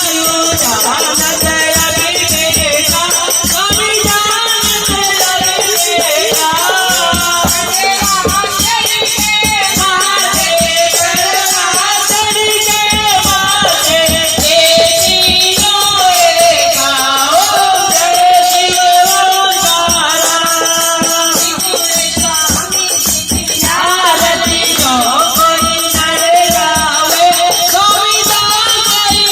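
Devotional music: a melody sung or played over a steady beat of percussion with a rattling, shaker-like sound.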